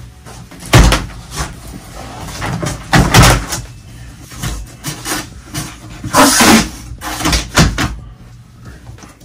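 Large corrugated cardboard shipping box having its top flaps pulled open and folded back: a series of cardboard thumps, scrapes and rustles. The loudest are a thump about a second in, a pair of strikes around three seconds in, and a longer scrape a little past six seconds.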